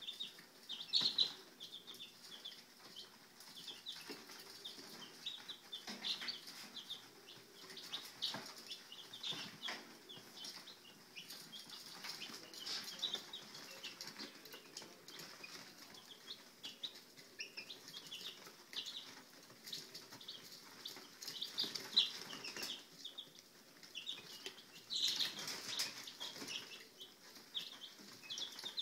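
A brood of baby chicks peeping continuously, many short, high chirps overlapping one another.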